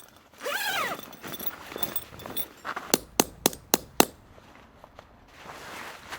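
Tent stakes being hammered in with five quick, sharp strikes, about four a second. Before them comes a short squeal that rises and then falls.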